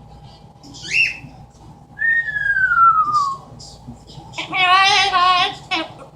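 Amazon parrot whistling: a short rising chirp, then a long smooth falling whistle, followed about four seconds in by a loud, wavering, voice-like call.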